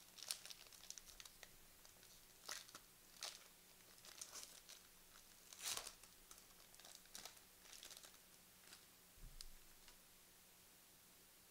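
Faint, scattered crinkling and rustling of trading-card packaging and cards being handled, in short bursts about a second apart.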